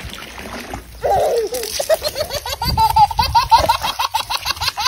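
A toddler laughing hard: a quick string of high-pitched laughs that starts about a second in and keeps going.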